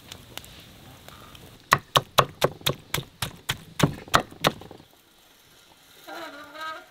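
Knife chopping quickly on a wooden board, about a dozen sharp strokes over three seconds. A short wavering pitched call follows near the end.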